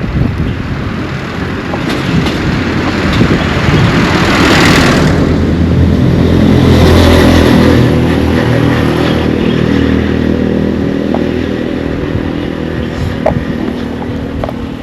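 A motor vehicle's engine running close by, growing louder to a peak about halfway through and then slowly fading, as if passing.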